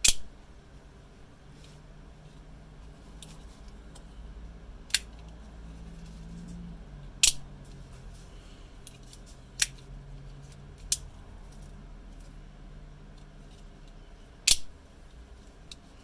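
Old French Ackermann automatic knives: their spring-driven blades snapping into place with sharp metallic clicks. There are about half a dozen clicks a few seconds apart, the loudest at the start, about halfway and near the end.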